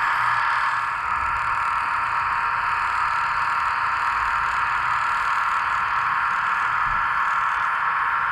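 Radio-controlled model tandem roller's small electric drive motor and gearbox running as it travels over gravel, a steady, even whine-like hiss.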